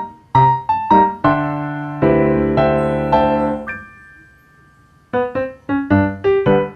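Background piano music: short ringing notes, a held chord that fades out, a brief pause, then quick notes again.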